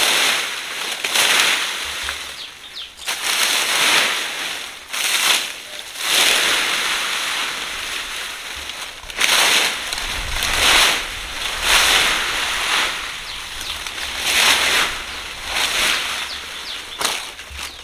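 Steel-tined fan rake dragged through dry fallen leaves, a crackling rustle with each stroke, about one stroke a second with a short lull in the middle.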